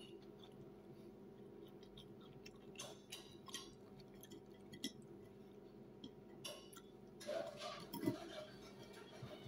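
Faint sounds of a person eating: chewing, with a metal fork clicking and scraping on a plate over a steady low hum. The loudest clatter comes about eight seconds in, as the fork cuts into a chicken pakora.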